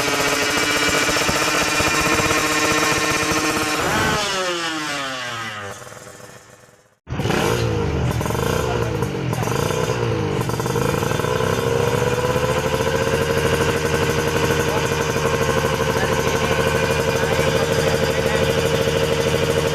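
Two-stroke Kawasaki Ninja R/RR twin running through a racing exhaust: the note falls in pitch and fades away, then comes back suddenly with a few short revs and settles into a steady idle.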